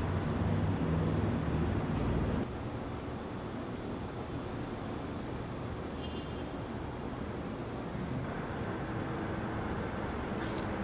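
Steady background rumble and hiss with no clear tones, like distant traffic; the sound changes abruptly about two and a half seconds in, the low rumble dropping and a higher hiss taking over.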